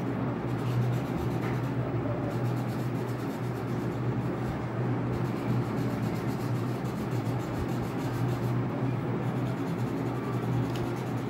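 Wax crayon rubbing on paper as an area is coloured in, over background music.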